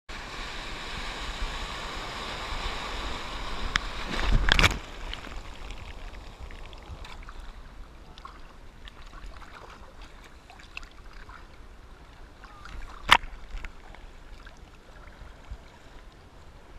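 Seawater rushing and splashing close against a camera on a surfboard, with a loud splash about four and a half seconds in, then quieter lapping and sloshing and one sharp knock near thirteen seconds.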